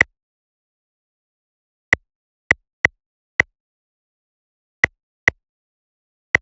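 A series of short, sharp clicks, about seven at uneven intervals, with dead silence between them.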